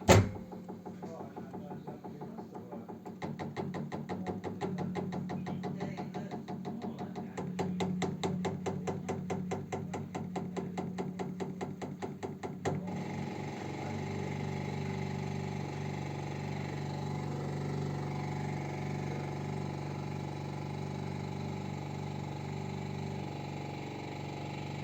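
A running engine's steady hum with a rapid, even ticking of about five or six a second, the ticking noise that the title puts at the radiator. A loud knock comes right at the start, and about 13 seconds in the ticking stops, leaving only the steady hum.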